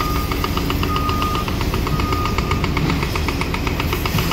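Diesel engine of heavy demolition machinery running with a steady, rapid clatter of about six beats a second over a low rumble. A high whine comes and goes over it.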